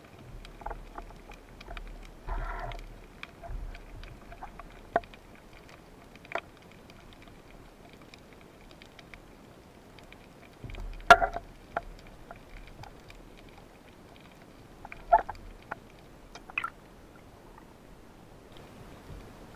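Muffled knocks, clicks and scrapes heard underwater through a camera housing, with a faint low rumble, from spearfishing gear being handled while a speared fish is taken off the spear shaft; two sharper knocks stand out, one about halfway through and one a few seconds later.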